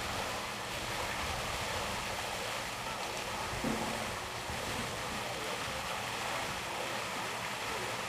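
Steady rushing wind noise buffeting the microphone outdoors, with one short bump about three and a half seconds in.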